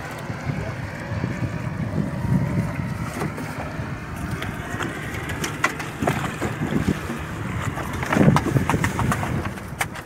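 Wind buffeting the microphone over the sound of a small fishing boat rocking on open sea, with scattered knocks and clicks as a handline is hauled in over the gunwale, most of them about halfway through and near the end.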